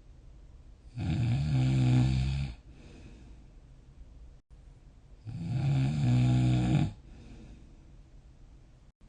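A sleeping person snoring: two long, low, buzzing snores about four seconds apart, each lasting about a second and a half, with a softer breath after each.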